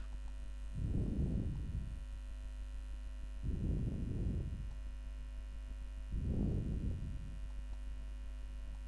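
Steady low electrical hum picked up by a voice-recording microphone, with three soft, low rushing sounds of about a second each, a few seconds apart.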